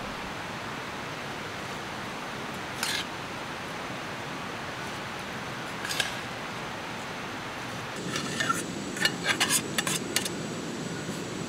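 A metal spoon clinking and scraping against an aluminium cooking-pot lid as rice cooks, with single clinks about three and six seconds in and a quick run of clinks near the end, over a steady hiss.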